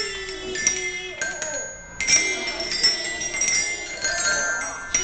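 Several children's glockenspiels with rainbow-coloured metal bars, struck with mallets by a group of players. They give bright, ringing notes that come unevenly and overlap as they sustain.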